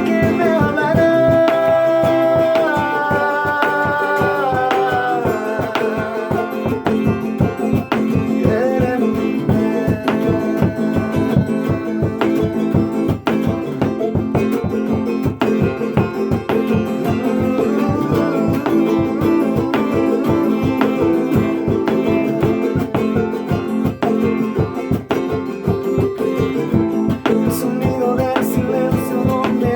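Guitar music: a rhythmic plucked and strummed guitar accompaniment under a sustained, slowly moving melody line, with no words.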